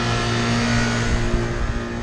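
Lennox commercial rooftop unit running with both 120,000 BTU compressors on: a steady electric hum over the even rush of the condenser fans. The unit is in test mode after a refrigerant leak repair and recharge.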